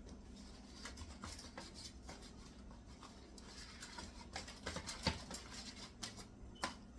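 Faint handling sounds of cooked ribs being cut and pulled apart: light scraping with a few soft knocks, the clearest about five seconds in and again near the end.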